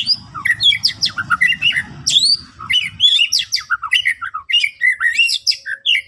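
White-rumped shama singing a fast, varied song of clear whistles, rising sweeps and harsher notes, one phrase after another without a pause. A low rumble sits underneath for the first half and stops about halfway.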